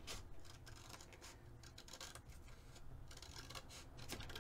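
Scissors snipping through thick journal paper, trimming its edge: a series of faint, irregular cuts.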